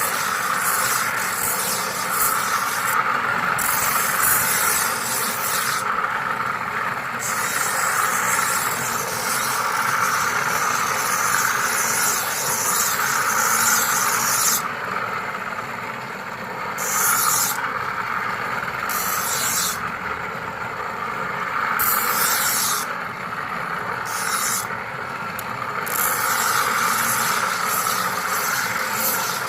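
Knife being sharpened: a steady hissing scrape of steel on an abrasive, its high hiss dropping out and coming back several times.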